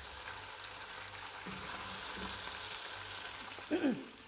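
Cubed onions, capsicum and tomatoes sizzling steadily as they fry in hot oil in a kadai, with a short louder sound near the end.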